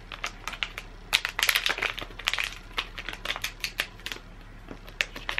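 Shiny metallic foil pouch crinkling sharply as it is torn open at its tear notch, with a dense stretch of crackles from about a second in and a few more near the end.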